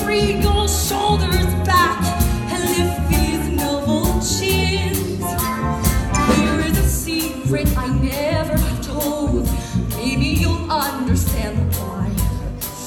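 Live voices singing a musical-theatre song to instrumental accompaniment with a steady beat.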